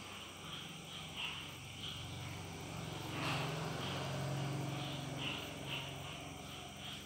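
Faint insect chirping, short chirps about twice a second, over a low hum that swells and fades again in the middle.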